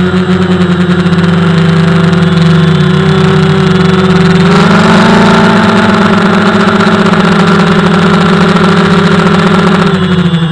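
DJI Phantom FC40 quadcopter's motors and propellers humming steadily, heard up close from its on-board camera. The pitch steps up about four and a half seconds in and drops back near the end.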